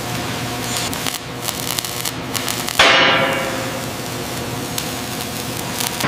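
Steel fabrication sounds: hammer-like metal strikes and crackle over a steady hiss, with faint ringing tones underneath. About three seconds in comes one loud sudden hit, which fades away slowly.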